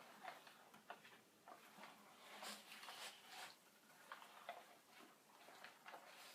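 Faint, scattered ticks and scratching, a little busier about halfway through.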